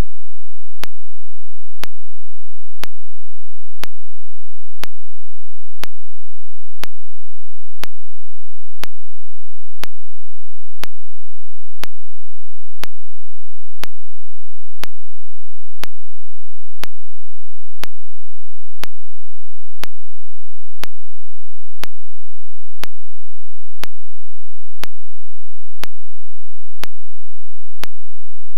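Sharp ticks evenly spaced about once a second, over a steady low hum.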